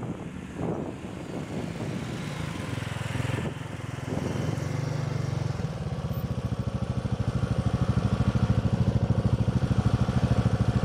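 Honda 500 FA ATV's single-cylinder engine running, louder and with an even rapid pulsing from about halfway through.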